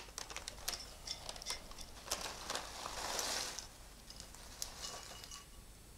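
Light scattered clicks and crinkling as a microwave snack bag and puffed pork crackle pieces are handled and tipped into a bowl, with a longer rustle of the bag about three seconds in.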